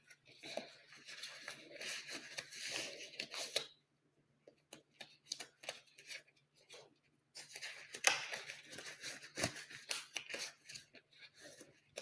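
Gloves being pulled on and worked over the hands: rustling with sharp clicks, in two stretches with a pause of a few seconds in between.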